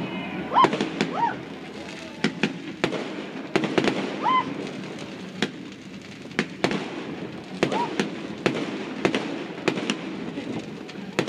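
Fireworks display: aerial shells bursting, a string of sharp bangs and crackles at irregular intervals, about a dozen in all.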